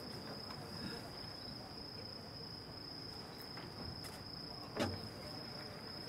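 Crickets trilling steadily on one high note through a summer night, with a single short, sharp sound about five seconds in.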